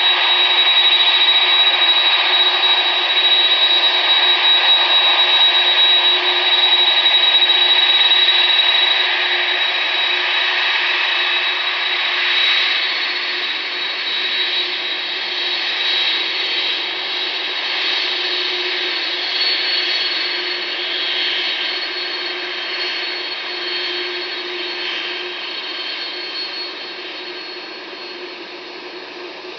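Jet engines of a Boeing 747-400F freighter taxiing at low power: a steady rushing noise with a high, even whine, slowly fading as the aircraft moves past.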